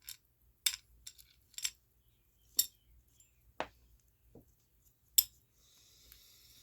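Small metal watchmaker's tools clicking and clinking as they are picked up and sorted through on the bench, about nine sharp clicks spaced out with quiet between them.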